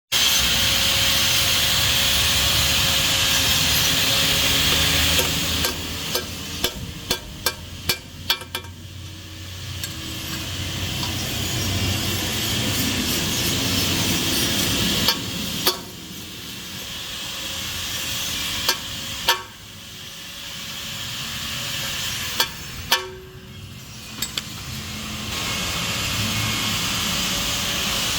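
Workshop noise: a steady mechanical rushing with a faint constant tone, broken by several clusters of sharp knocks, many in quick succession about six to nine seconds in and single or paired ones later.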